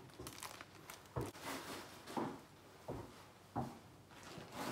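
Groceries being handled: plastic produce bags rustling, with a few short, soft knocks as items are set down.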